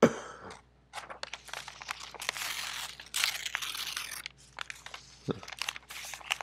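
Crinkling, crunching noise full of quick clicks, like something crisp being handled or crushed, after a sharp knock at the start; it is loudest about two to four seconds in.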